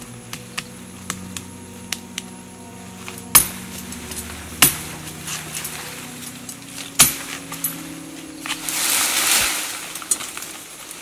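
Machete chopping into a thin tree trunk: three sharp knocks a second or two apart among lighter ticks, then a louder rustling noise for about a second and a half near the end.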